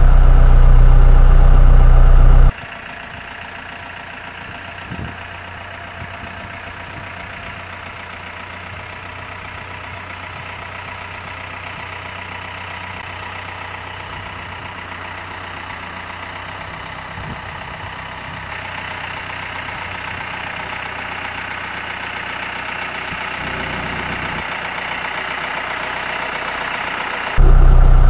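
Branson 7845C utility tractor's diesel engine running. It is loud and deep inside the cab for the first couple of seconds, then quieter and more distant and growing steadily louder, then loud in the cab again near the end.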